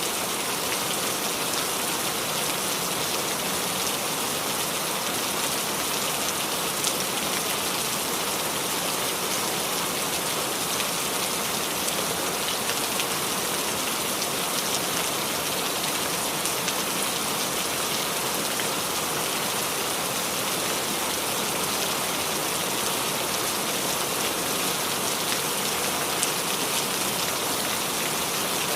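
Steady rain falling on the leaves of a small tree, an even hiss with occasional individual drops ticking through it.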